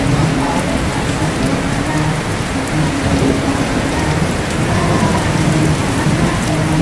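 Heavy rain falling steadily, with a low rumble of thunder underneath.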